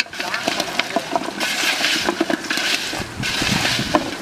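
Wet squelching and squishing of a hand kneading cauliflower florets into a thick spice-paste coating in a plastic basin, in repeated bursts.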